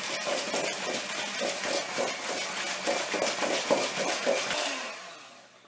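Handheld electric mixer running, its beaters whirring in a stainless steel bowl as egg is beaten into creamed butter and sugar. It winds down and stops near the end.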